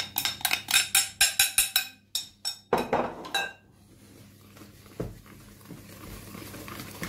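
Wire whisk beating flour into cake batter in a plastic mixing bowl, its wires clicking against the bowl about five times a second, then a few heavier strokes and quieter stirring from about halfway.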